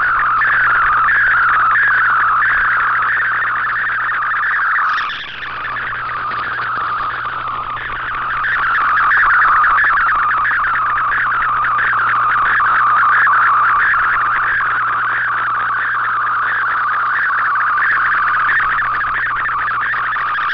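Shortwave digital picture signal in MFSK image mode, heard through an Icom IC-R8600 receiver: a fast-warbling tone shifting around 1 to 2 kHz as the image's lines are sent, over background hiss and a steady low hum. It dips briefly about five seconds in.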